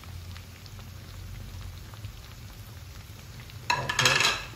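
A silicone spatula scraping grated mozzarella off a plate into a pan of thickened white cheese sauce, with the sauce faintly bubbling and small ticks of the spatula. A short, louder scraping clatter comes near the end.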